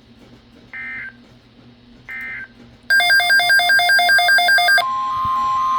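Two short, shrill data bursts of a weather-radio SAME end-of-message code, about a second and a half apart. About three seconds in, a loud electronic alert pattern of rapidly pulsing tones starts, like a ringtone. Near the end it gives way to a steady high tone with short musical notes over it.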